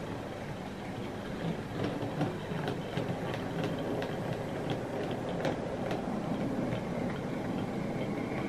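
OO gauge model train running past: the small tank locomotive's motor running steadily while the metal-wheeled wagons click and rattle irregularly along the track.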